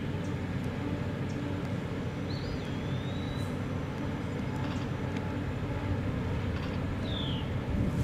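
Steady low rumble of heavy equipment running at a natural gas drilling pad, carried across the valley, with no change in level.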